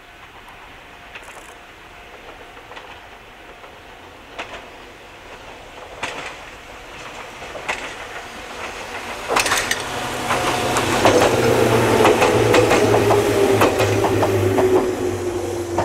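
Ohmi Railway's two-car electric train 105F approaching and passing close by, its wheels clicking over the rail joints. It grows steadily louder and is loudest over the last six seconds, with a low hum and a whine that slowly falls in pitch as it goes by.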